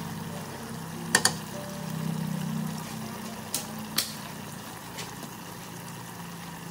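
Cooking utensils clinking against a metal pot and seasoning containers while seasonings are spooned in: a sharp double clink about a second in, two more clinks a few seconds in and a faint one about five seconds in, over a steady low hum.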